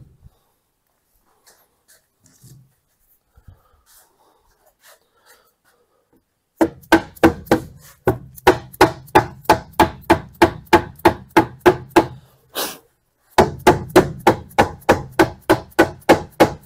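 Mallet knocking a plywood cabinet side panel home onto the top and bottom pieces: two runs of quick, even blows, about four a second. The first run starts about six and a half seconds in after a few quiet seconds of faint handling knocks, and the second follows a short pause about thirteen seconds in.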